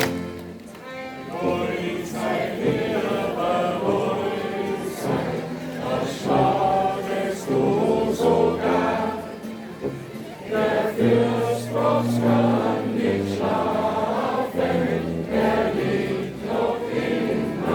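A group of people singing a folk song together in chorus, with instruments playing along.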